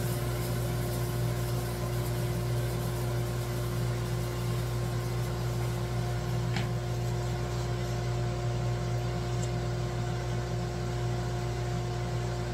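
Laguna 14|12 bandsaw and its dust collector running steadily with nothing being cut: a low hum with a faint steady whine above it.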